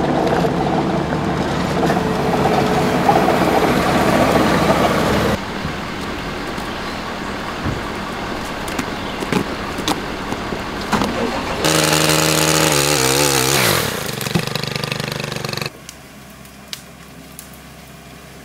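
Engines running in several separate takes joined by abrupt cuts: a loud steady engine sound, then a rougher stretch with scattered knocks, then an engine winding down in pitch about twelve to fourteen seconds in, and a quieter stretch near the end.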